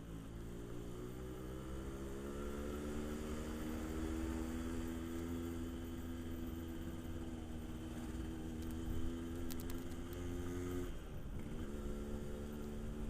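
Yamaha RX King's 135cc two-stroke single-cylinder engine under way, its pitch climbing over the first few seconds and then holding steady. About eleven seconds in the pitch drops sharply, then climbs again.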